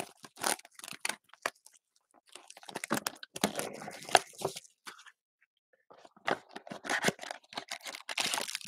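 Foil wrapper of a Chronicles Draft Picks trading-card pack being torn open and crinkled by hand, in two stretches of crackling with a short pause between.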